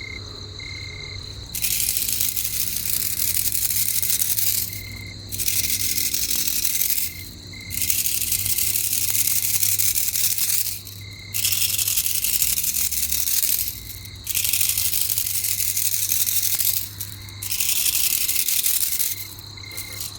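Night insects calling: a loud high buzzing that comes in spells of two to three seconds with short breaks between, over a thinner steady high note and a faint repeating chirp.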